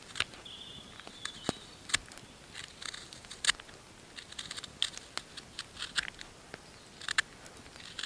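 Small knife shaving and scraping a wooden spoon blank: a quick, irregular series of short cuts, several sharper than the rest.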